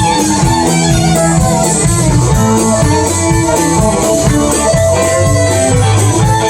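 Country band playing an instrumental break: guitar lead over bass and drums, with a steady beat.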